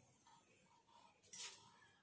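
Near silence between sentences, with one faint, brief hiss about one and a half seconds in.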